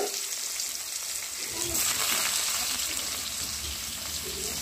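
Sliced onions sizzling steadily in hot oil with bay leaves in a kadai, the oil bubbling as the tempering goes in.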